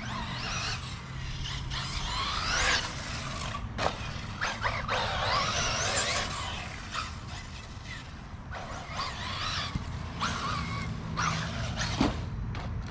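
Electric RC car's motor whining, rising in pitch each time it accelerates, over and over, with a steady low hum underneath.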